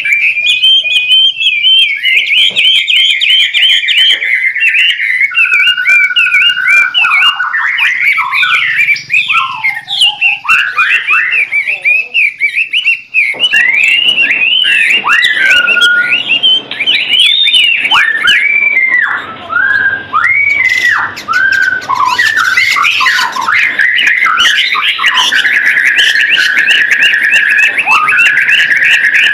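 White-rumped shama singing in full, continuous song: a rapid, unbroken run of varied whistled and chattering notes that swoop up and down.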